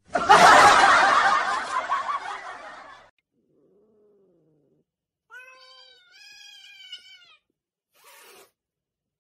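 Cats calling: a loud wailing call that fades away over about three seconds, then after a pause a longer wavering call in two parts, and a short noisy burst near the end.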